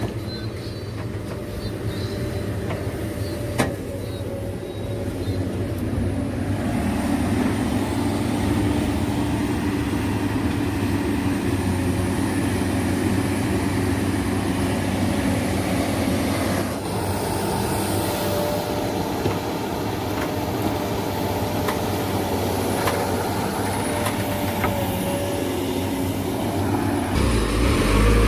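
Heavy diesel engine running steadily with a low hum. It gets louder about a quarter of the way in, shifts again past the middle, and a deeper rumble rises near the end.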